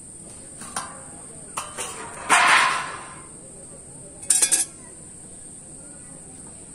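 A steel plate and knife clattering on a concrete floor: a few light clinks, a louder scraping clatter about two and a half seconds in, then three quick metallic knocks about four and a half seconds in. A steady high-pitched insect drone runs underneath.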